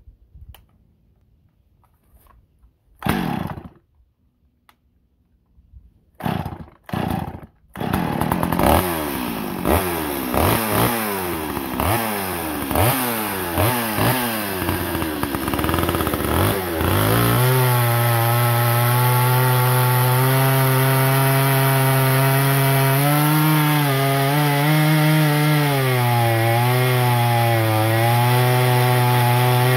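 Stihl 025 two-stroke chainsaw being pull-started: one pull, a pause, then three quick pulls before it catches about eight seconds in. It runs with repeated revs for several seconds, then holds full throttle from about halfway through, its pitch sagging and recovering as the chain cuts into hard ash.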